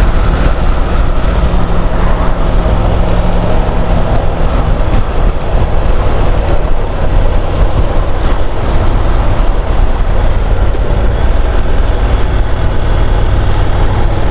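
Honda NC750 motorcycle's parallel-twin engine running steadily while riding, heard with a dense rush of road and wind noise.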